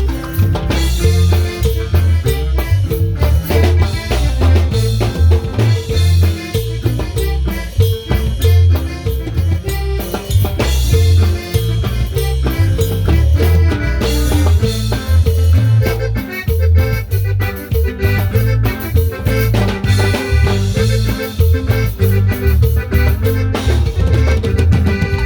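Band music jammed with a steady drum-kit beat and a heavy bass line, in an upbeat Latin style.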